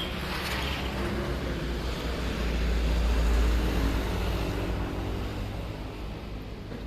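A motor vehicle's engine rumbling low; it swells to its loudest about three seconds in and then fades away.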